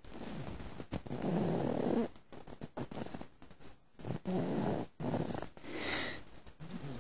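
Slow, noisy breaths close to the microphone, three of them a few seconds apart.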